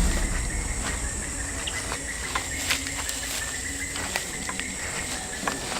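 Steady high drone of insects chirring, with scattered light snaps and crackles of footsteps on forest litter and a low rumble of handling on the handheld microphone.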